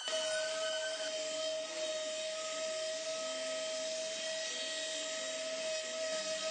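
Electric sander running steadily on a glued-up wooden panel: a constant motor whine over a sanding hiss, starting abruptly.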